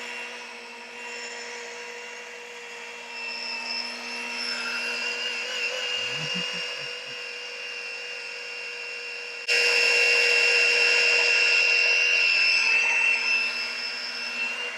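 Electric rotary glass polisher running on window glass with cerium oxide polish, buffing out scratches. Its motor gives a steady whine that jumps abruptly louder about nine and a half seconds in.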